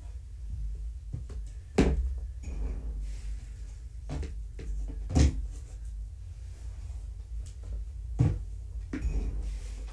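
A few separate dull knocks and thumps, roughly three seconds apart, over a low steady hum; the loudest comes about five seconds in.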